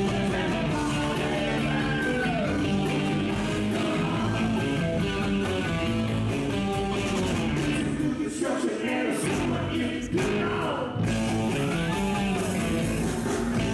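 Live rock band playing electric guitars, bass guitar and drums, with a man singing and guitar notes bending up and down. The bass and drums drop out briefly about eight seconds in, then the full band comes back in.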